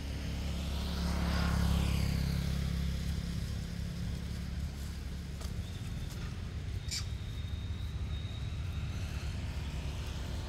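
A motor vehicle passing by, its engine rumble swelling to a peak about two seconds in and then fading to a steady low drone. A single sharp click about seven seconds in.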